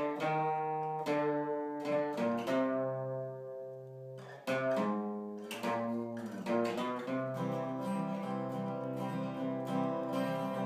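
Two acoustic guitars strumming chords together without singing. About three seconds in a chord is left to ring out and fade, and the strumming picks up again at about four and a half seconds.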